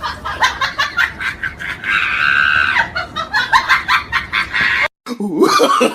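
Chicken clucking sound effect: rapid short clucks with a longer held call about two seconds in. It cuts off abruptly near the end, and a new voice-like effect starts.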